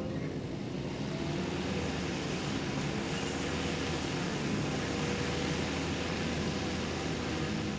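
Skid steer engine running steadily under load as it works the ground with a bulldozer attachment.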